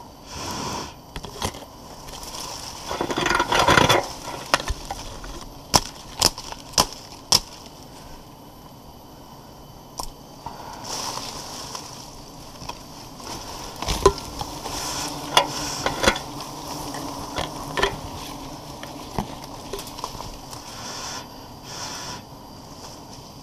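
Leaves and branches rustling and scraping as a climber moves about in a tree, with scattered sharp knocks against wood, including a run of four about half a second apart.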